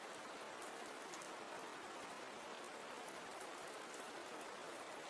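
Soft, steady rain falling: a faint, even hiss with light scattered drop ticks.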